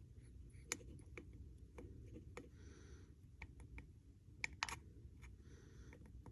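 Faint, irregular clicks and light crackles of thin plastic water-bottle pieces being handled and pressed together, with a brief soft rustle about two and a half seconds in.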